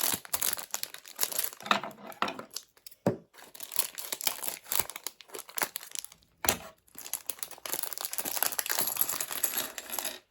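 Foil LEGO minifigure blind-bag packet crinkling and rustling as it is handled and its pieces are taken out, with a couple of sharper clicks.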